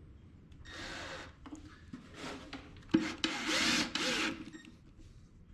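Power drill driving long screws into a half-inch wood panel of a subwoofer box, in several short runs with the motor winding up and down. The longest, loudest run comes about three seconds in and starts with a sharp click.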